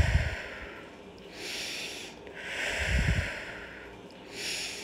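A woman taking slow, deep yoga breaths in and out, each breath an audible hiss lasting a second or more, with a puff of breath on the microphone about at the start and again about three seconds in.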